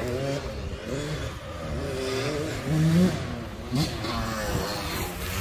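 Two-stroke dirt bike engine revving up and down under throttle while being ridden, its pitch rising and falling, with a sharp rise about three seconds in and a quick blip soon after.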